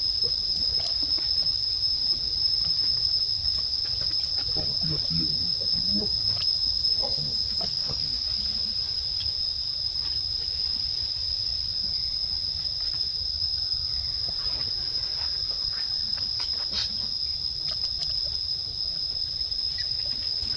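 Steady high-pitched drone of insects, one unbroken tone, over a low rumble, with a few faint short sounds scattered through the middle.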